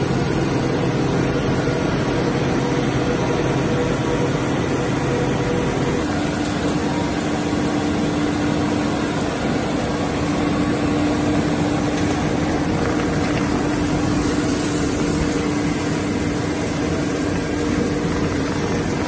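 Plastic film washing and recycling line running: a steady mechanical din of motors and washers, with the blower of the drying pipe blowing washed film flakes into the silo. A steady hum runs under it and changes pitch about six seconds in.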